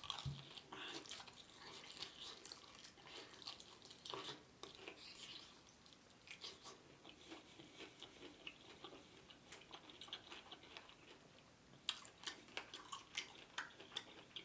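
Close-up eating sounds: a person chewing and biting crispy fried chicken, with irregular crunches and wet smacks.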